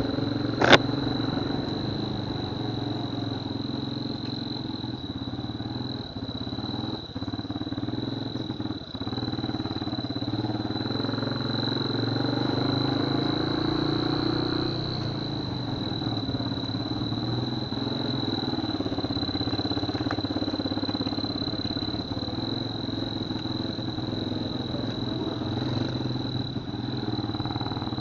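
Honda Verza 150 single-cylinder motorcycle engine running steadily, with a turbo whistle fitted to the exhaust giving a constant high whistle over the engine, meant to mimic the sound of an L300 pickup or truck turbo. A sharp click about a second in.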